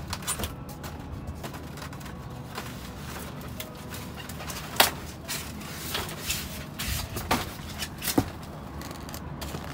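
Metal rod poking and scraping among cardboard boxes and plastic egg cartons in a dumpster: scattered clicks and knocks, the sharpest about five seconds in, over a low steady hum.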